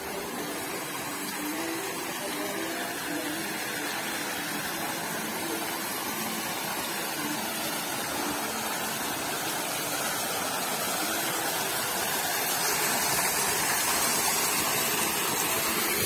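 Water pouring from an artificial rock waterfall into a swimming pool: a steady splashing rush that grows louder in the last few seconds.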